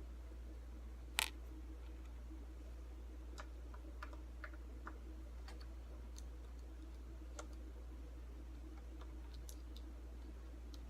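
Faint, scattered ticks and clicks of a small screwdriver and tiny screws being worked loose from an HP G62t laptop's screen frame, with one sharper click about a second in, over a steady low hum.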